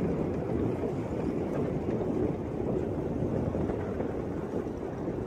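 Steady, even rumbling noise with no distinct events, strongest in the low-middle range.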